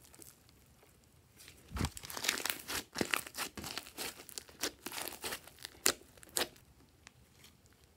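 Glossy slime with small beads mixed in, squeezed and stretched by hand: a busy run of sticky crackles, pops and clicks that starts about two seconds in and dies away about a second before the end.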